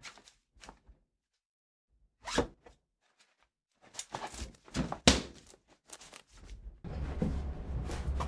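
Scattered knocks, thuds and rustles of things being moved about inside a cabinet under a kitchen sink, with a sharp knock about five seconds in. A steady background hiss sets in near the end.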